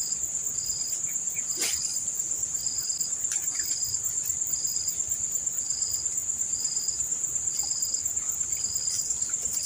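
Insects calling: a steady, high-pitched buzzing trill, overlaid by a second insect chirping in short regular pulses about once a second.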